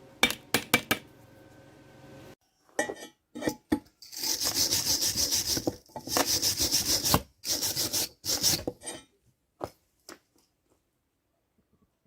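A few sharp hammer taps on metal, then several seconds of rapid back-and-forth scraping strokes, like a chipping hammer and wire brush cleaning slag off a fresh weld.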